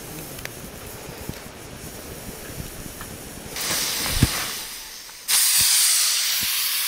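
Cooking sizzle from a pan of hot oil: a moderate hiss with small crackles and knocks, jumping suddenly to a loud, steady sizzle about five seconds in.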